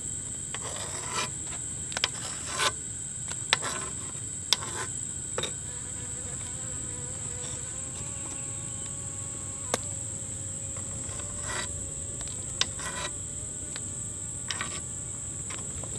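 Steady high-pitched drone of insects, with scattered sharp clicks of a metal spoon knocking against a frying pan as the foam is skimmed off boiling pork ribs.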